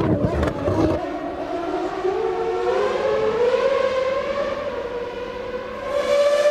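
A Formula One car's engine, loud at first and fading about a second in. A single engine note then holds, its pitch rising slowly and steadily over several seconds.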